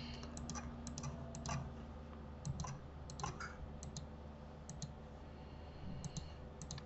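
Faint, scattered computer mouse and keyboard clicks, several of them in quick pairs.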